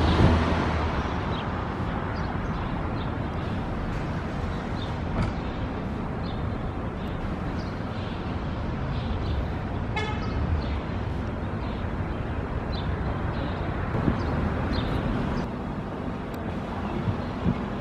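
Steady street traffic noise, with one short car horn toot about ten seconds in.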